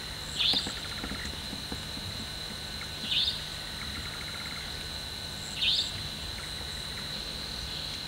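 Savanna (Franklin's) nightjar giving three sharp, high single calls about two and a half seconds apart. Behind them runs a steady high-pitched chirring of crickets.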